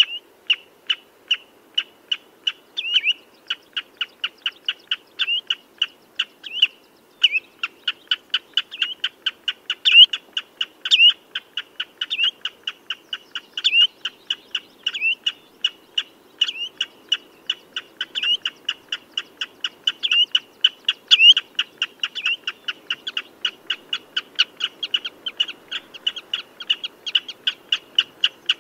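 Common redshank calling: an unbroken rapid series of short, sharp piping notes, about three to four a second, with occasional louder slurred notes.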